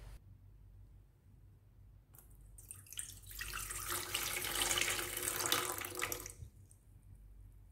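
A stream of water poured into a stainless-steel pot, splashing and filling for about four seconds; it starts about two seconds in and stops shortly before the end.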